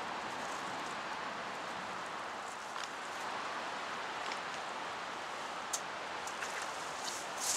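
Steady rustling hiss of wind through reeds and riverside trees, with a few light clicks in the last couple of seconds.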